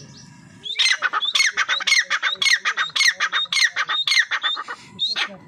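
Grey francolin calling: a loud, rapid run of shrill repeated notes that starts about a second in and stops just before the end.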